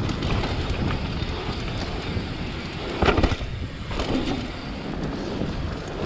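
Mountain bike rolling fast down a dirt singletrack: tyres running on dirt and the bike rattling, with wind on the camera microphone. A louder clatter comes about three seconds in.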